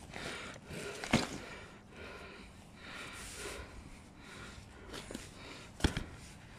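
Footsteps on asphalt with rustling handling noise from the phone and backpack, and two sharp knocks, the louder one near the end.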